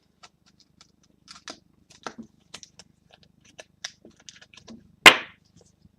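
Trading cards being handled and sorted by hand: scattered soft clicks and rustles of card stock, with one loud sharp click about five seconds in.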